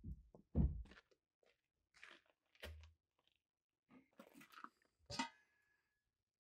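Rubber boots thudding heavily on wooden steps, then footsteps crunching in snow, with a sharp clank and a brief metallic ring about five seconds in.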